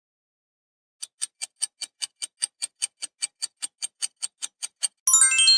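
Countdown-timer sound effect: a clock ticking evenly, about five ticks a second for some four seconds. Near the end it gives way to a bright chime of tones stepping downward, signalling that time is up.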